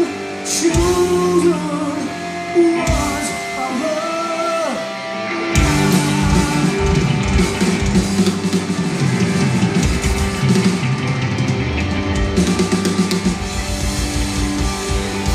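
Live hard rock band heard from the audience: singing over electric guitars, then the drums and full band come in about five and a half seconds in and play on.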